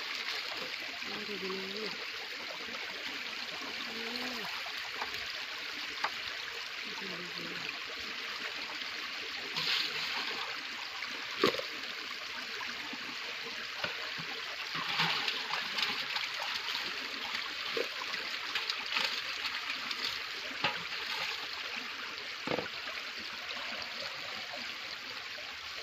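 Water streaming and spraying off the mesh of a raised bamboo-framed lift net (dharma jal) back into shallow floodwater. A few louder splashes come around ten and fifteen seconds in, and a single sharp knock about eleven seconds in.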